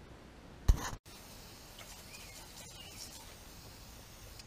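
One sharp click, then faint outdoor ambience: a low steady hiss with a few short, high bird chirps.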